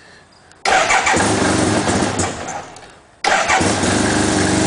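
1975 Suzuki RE5's single-rotor Wankel engine cold-started on choke: it fires suddenly and runs for about a second and a half, dies away, then fires again about three seconds in and settles into a steady idle.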